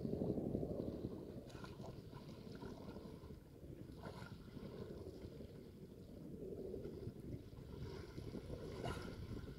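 Wind buffeting the microphone over open water, a steady low rumble, with three faint short sounds spread through it.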